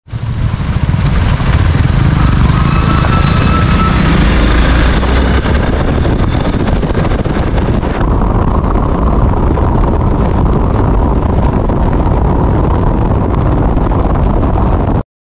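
Riding noise from a Hero Xpulse motorcycle on wet roads: heavy wind buffeting on the handlebar-mounted microphone over the bike and its tyres, loud and steady. The sound changes at a cut about 8 seconds in and stops abruptly near the end.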